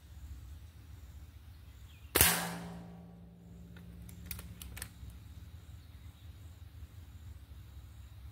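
A single shot from a Gamo Swarm Whisper .22 air rifle, a sharp crack with the pellet striking a steel target plate at close range, the plate ringing on and dying away over a few seconds. A few light clicks follow about two seconds later.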